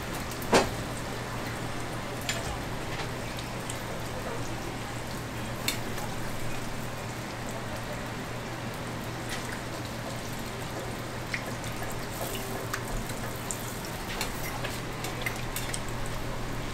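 Hotteok frying in shallow oil on a flat griddle: a steady sizzle with scattered crackles, and sharp metal clinks of a spatula and a hotteok press against the griddle, the loudest about half a second in. A low steady hum runs underneath.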